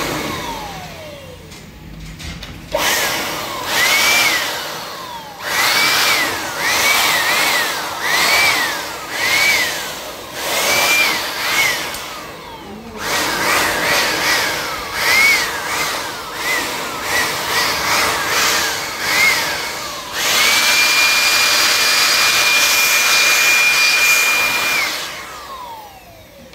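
Handheld electric air blower fired in many short bursts, its motor whining up to speed and winding down each time, then held on steadily for about four seconds before spinning down near the end. It is blowing dust out of a laptop's cooling fan and heatsink.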